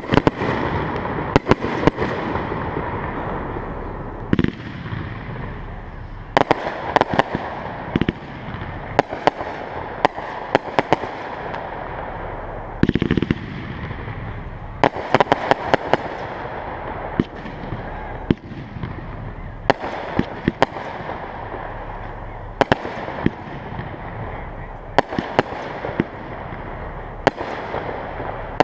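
Aerial fireworks display: dozens of sharp bangs from shells launching and bursting overhead, many coming in quick clusters, over a steady rushing noise.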